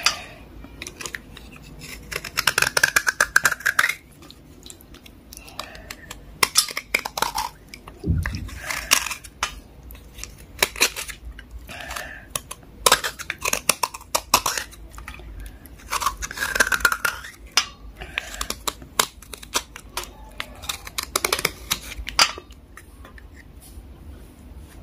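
Knife blade scraping the softened surface of a water-soaked dark block in repeated wet, rasping strokes, several bursts of one to three seconds each, with water sloshing in a plate between them.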